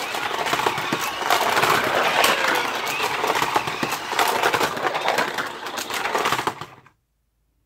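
Shake 'n Go toy cars running and crashing on a plastic race track: a busy rattling and whirring full of small clicks and knocks. It cuts off suddenly near the end.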